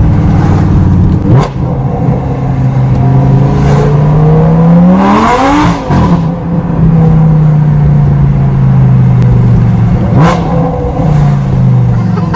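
Lamborghini Gallardo LP560-4's V10 engine through an Armytrix valved exhaust, heard from inside the cabin as the car accelerates. The engine note climbs steadily in pitch to a peak about five and a half seconds in and then falls away sharply, with quick dips in the note near the start and about ten seconds in.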